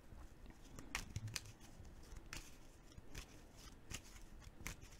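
A deck of tarot cards being handled and shuffled by hand: faint, scattered crisp snaps and slides of card stock, about one a second.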